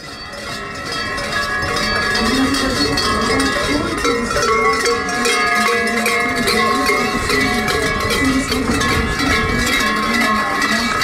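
Many large cowbells clanging together without a break, worn on the belts of shaggy fur-costumed kurent carnival figures as they move along. The clanging swells over the first couple of seconds, then stays loud and dense.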